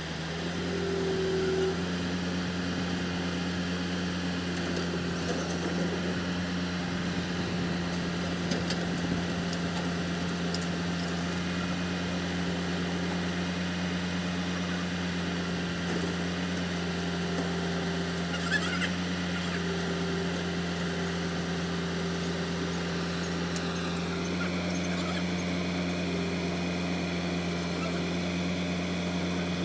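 Kobelco crawler excavator's diesel engine running at a steady speed, giving a constant, even drone.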